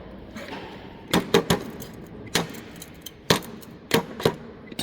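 Sharp metallic clicks and knocks, about eight at irregular spacing, as the parts of a circulation pump are handled and worked apart by hand.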